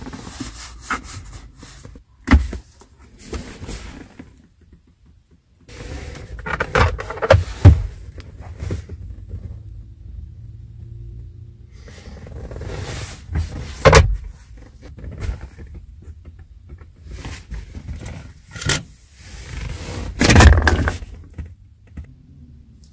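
Clicks, knocks and thunks of a car's interior fittings being handled, such as the gear lever and the glove box, with scraping of plastic trim in between. The loudest knocks come about 14 and 20 seconds in.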